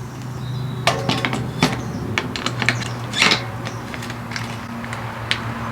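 Irregular sharp metallic clicks and knocks of mountain bike parts being handled and fitted during a bike build, over a steady low hum.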